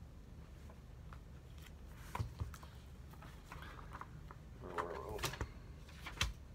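Hardcover picture book being picked up and opened by hand: a few sharp taps and knocks of the cover and pages, over a steady low hum.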